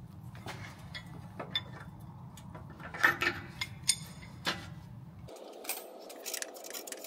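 Metal clinks and clicks of a NOx-sensor socket tool loosening a NOx sensor from the exhaust pipe, then the loosened sensor being turned out by hand. The clicks are scattered, the loudest about three seconds in. The sensor comes out easily, not seized, its threads clean.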